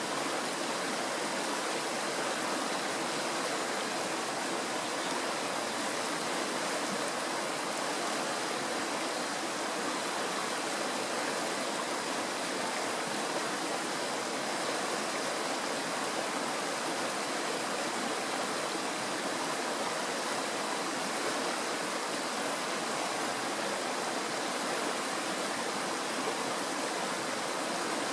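Shallow mountain stream rushing and burbling over stones and small riffles, a steady, even water noise with no breaks.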